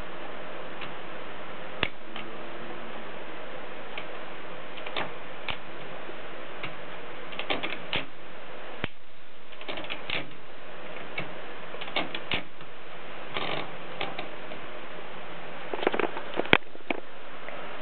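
Brother 220 typewriter keys being struck: irregular, scattered clacks, sometimes several in quick succession, over a steady hiss. The sharpest strike comes near the end.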